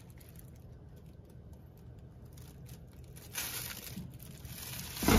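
Thin plastic food-prep glove crinkling and rustling as a hand pats and rubs seasoning onto a wet salmon fillet, faint at first and louder from about three seconds in.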